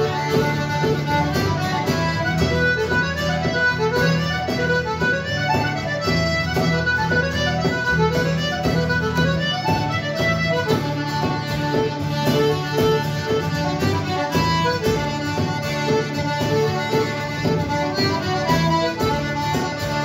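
Live instrumental tune led by a button accordion, with acoustic guitar strumming and a bodhrán beating time.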